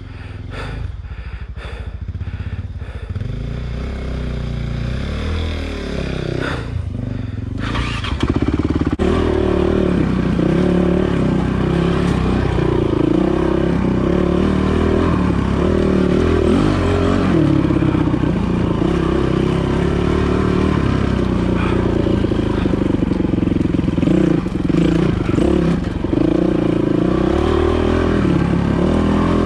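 Dirt bike engine running as the bike is ridden along singletrack, its pitch rising and falling with the throttle. It gets louder about eight seconds in.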